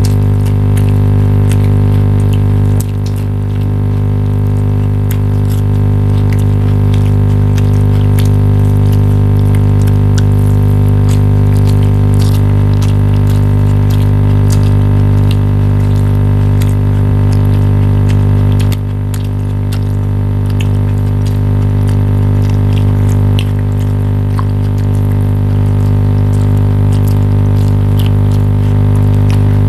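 A loud, steady droning hum with many even overtones, its level dropping slightly at a few points, with faint clicks over it.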